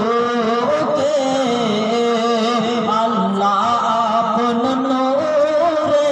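A man singing a Bangla gojol, an Islamic devotional song, into a microphone, in long held notes that waver up and down.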